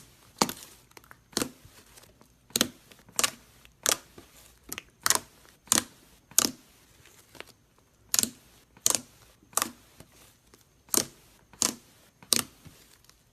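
Slime being squeezed and pressed, making a series of sharp pops and crackles, roughly one every two-thirds of a second, with a short pause about halfway through.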